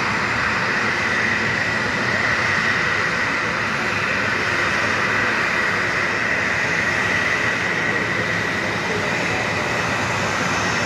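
Boeing 737-700's CFM56-7 turbofan engines running at taxi power: a steady rushing noise with a high whine held throughout.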